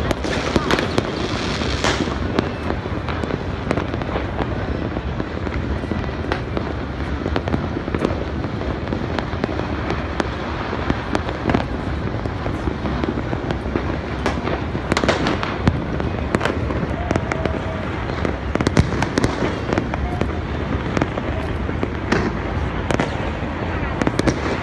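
Dense, continuous crackle and popping of many fireworks and firecrackers going off across a city, with frequent sharper bangs standing out from the din.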